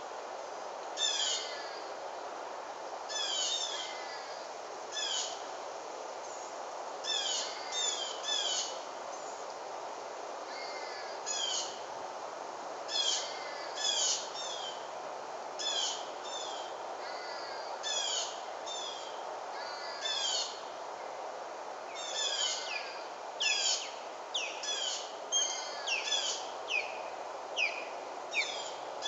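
Songbird calls: short high chirps that slide downward in pitch, coming in quick runs of two to four and repeating every second or two, over a steady background hiss.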